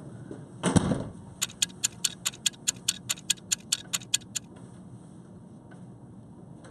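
Clock-ticking sound effect, a fast even train of about six ticks a second for some three seconds, marking a time skip. A single thump comes just before it, about a second in.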